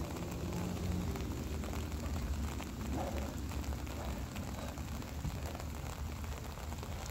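Light rain falling, with many small drop ticks, over a steady low rumble.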